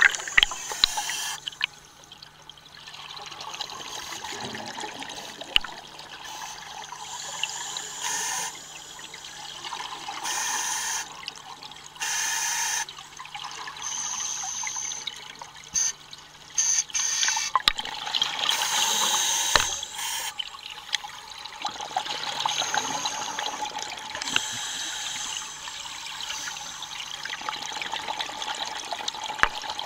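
Scuba diver breathing underwater through an open-circuit regulator: hissing inhalations alternate with bubbling exhalations every few seconds, over a faint steady low hum.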